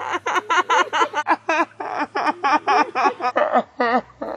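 A girl's voice in a fast, unbroken run of short pitched syllables with wavering pitch, about four or five a second.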